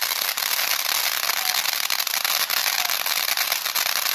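Ground fountain firework spraying sparks: a steady dense hiss full of rapid crackling pops.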